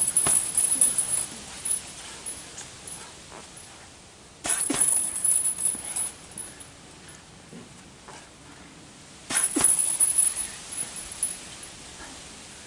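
Three flurries of gloved punches on a hanging heavy bag, each a quick run of thuds lasting about a second and a half, about four to five seconds apart, with a high metallic jingle from the bag's hanging chain in each flurry. Between the flurries it is much quieter.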